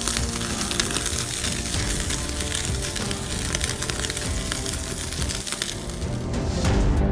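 Background music over the sizzle and crackle of a côte de boeuf searing on a grill over glowing charcoal, with flames flaring beside the meat. The sizzle drops away about six seconds in, leaving the music.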